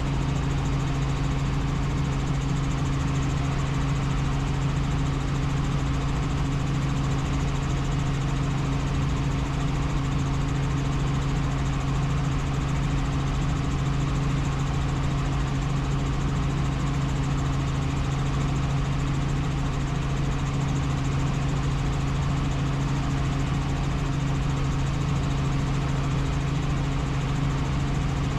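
Helicopter in flight: a steady, unchanging drone of engine and rotor with a strong low hum.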